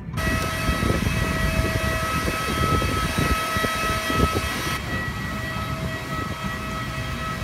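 Jet aircraft turbine on the airport apron: a steady high whine of several held tones over a rushing noise, with wind buffeting the microphone. The top of the hiss drops a little about two-thirds of the way through.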